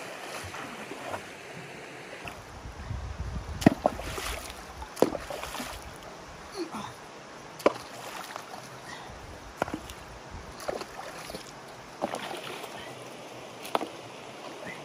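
Irregular splashes and sloshes of a person wading in shallow river water, stepping and scooping up stones and mud, with occasional sharp knocks, over a steady hiss of water.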